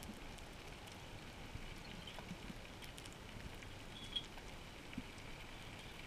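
Underwater ambient noise heard through a camera housing: a steady hiss with scattered faint crackling clicks, and a few short soft knocks, the loudest about four seconds in.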